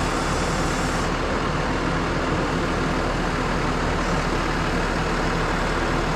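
Tractor engine running steadily, a constant mechanical noise with no change in speed.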